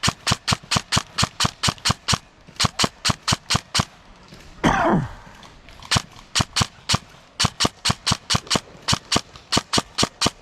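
Airsoft gun firing rapid shots in strings of about six a second, with short pauses between strings. About halfway through, a loud sound falls steeply in pitch.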